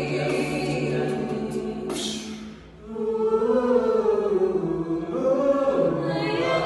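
A cappella group singing in harmony, several unaccompanied voices together, with a short break a little under three seconds in before the voices come back in.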